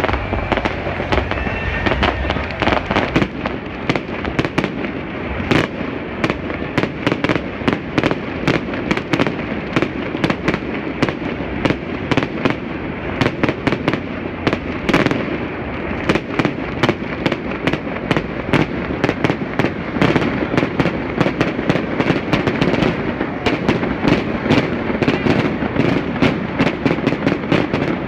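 Low-altitude aerial fireworks going off in a continuous barrage of powerful, sharp reports, several a second, between tall city buildings.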